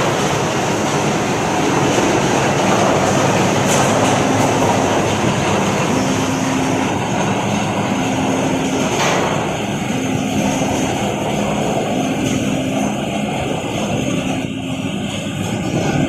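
Tractor-driven transit concrete mixer running: the tractor engine and the turning mixer drum make a loud, steady mechanical din. From about four seconds in, a low tone sounds briefly about every two seconds.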